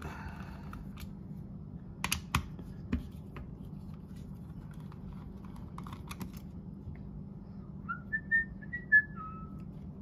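A few sharp metallic clicks and taps as a screwdriver works on a brass mortise lock case, over a steady low hum. Near the end a person whistles a short phrase of a few notes.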